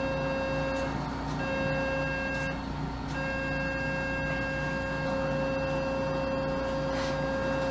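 Vulcan radiofrequency thermal probe generator sounding its steady activation tone while the probe heats the ligament to shrink its collagen fibres (thermal plasty). The tone sounds briefly, stops, sounds again for about a second, stops, then is held from about three seconds in.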